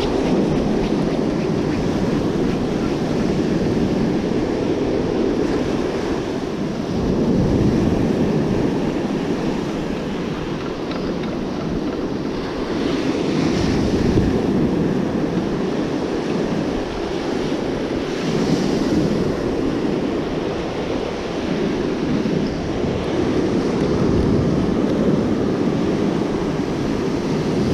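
Breaking surf washing up the beach, a continuous rushing that swells and eases as the waves come in, with wind buffeting the microphone.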